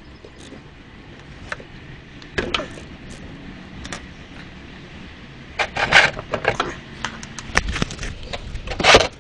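Hand-tool clicks, scrapes and knocks while a motorcycle's oil drain plug is being loosened. There is a louder clatter about six seconds in and another near the end.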